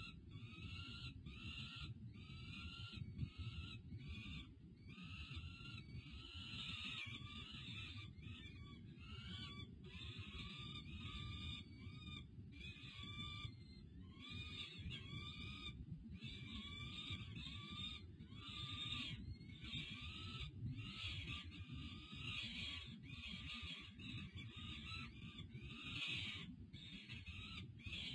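Peregrine falcon nestlings begging to be fed: a continuous run of short, arched, squealing calls, about two a second, over a steady low rumble.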